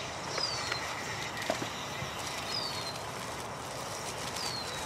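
A bird's short, high, falling whistle, repeated three times about two seconds apart, over steady background hiss, with a few faint clicks in the first two seconds.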